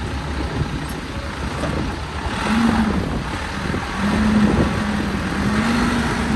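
Cat 416C backhoe's diesel engine running steadily. About two seconds in it grows louder, and a humming tone comes and goes several times.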